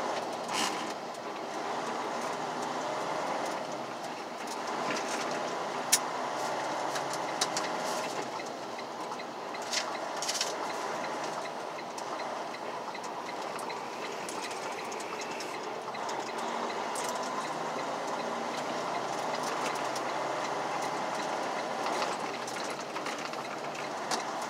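Semi-truck cab noise while driving: a steady rumble of engine and road, with scattered sharp clicks and rattles, the loudest about six seconds in.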